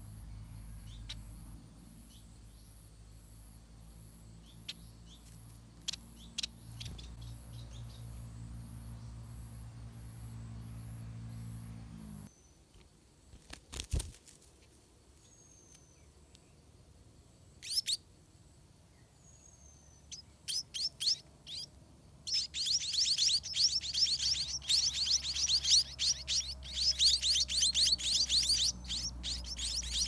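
Spotted munia chicks calling in the nest: a few thin, scattered high chirps, then about two-thirds of the way in a rapid, continuous chorus of high begging chirps that grows loud. A single short knock sounds near the middle.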